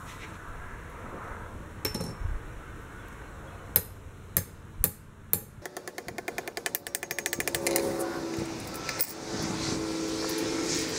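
Hammer blows on a steel flat bar clamped in a bench vise, bending its end over. First a few separate strikes, then a fast, even run of them, because the footage is sped up four times.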